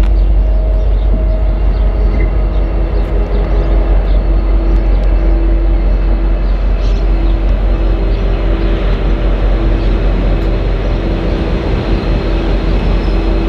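V/Line N class diesel locomotive running at low power as it moves slowly during shunting, a steady engine drone with a gently pulsing hum over a low rumble.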